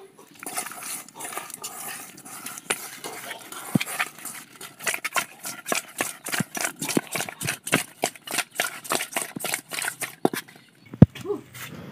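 Raw fish pieces being mixed by hand in an aluminium bowl to coat them in spices: a run of wet squelches and slaps, a few a second, with a single sharp knock near the end.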